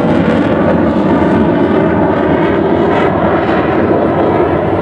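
Delta-wing fighter jet flying overhead, its jet engine noise loud and steady.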